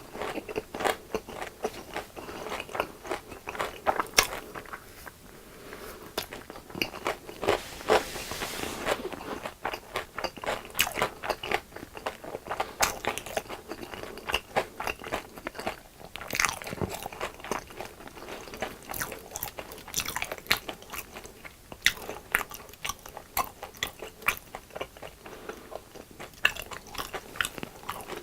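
Close-up crunching bites and chewing of crispy deep-fried food, a dense run of sharp crackly crunches.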